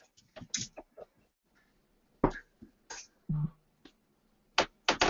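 Darts being pulled out of a bristle dartboard: a few sharp clicks and light knocks spread out, with a quick cluster of clicks near the end.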